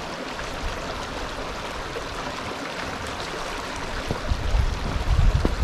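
Steady wind hiss, with gusts buffeting the microphone as a low rumble from about four seconds in.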